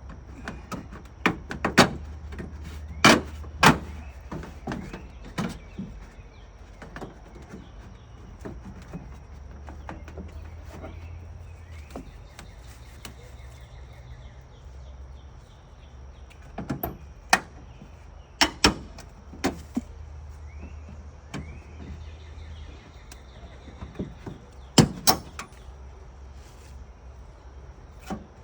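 Hand tools working on house siding, heard as irregular sharp knocks and clacks, some in quick pairs, as the corner piece and its nails are pried out. A steady low rumble runs underneath.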